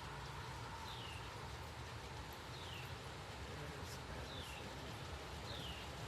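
A bird repeating a short, falling chirp about four times, every second or two, over a steady low outdoor rumble.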